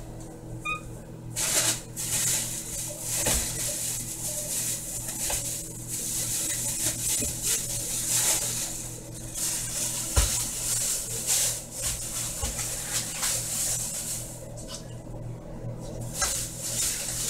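Rummaging for cupcake liners: a long run of irregular rustling and crinkling as packaging is handled, with a knock about ten seconds in. A low steady hum runs underneath.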